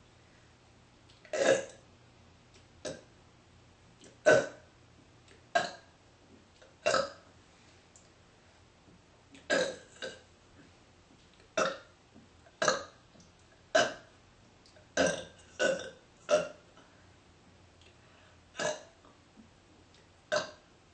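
A woman burping over and over, about fifteen short burps a second or two apart, forced out in quick succession from a stomach full of soda.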